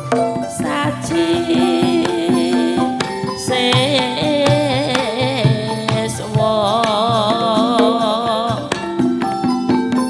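Javanese gamelan playing, its struck metallophone tones ringing steadily, with a sindhen singing a long wavering line over it.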